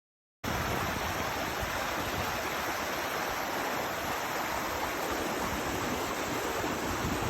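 Steady rushing of a small brook, cutting in abruptly about half a second in.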